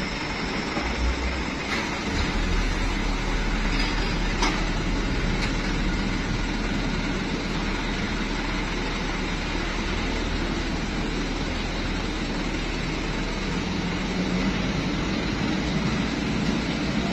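Excavator's diesel engine running steadily with a deep low hum, with a few sharp knocks in the first five seconds or so.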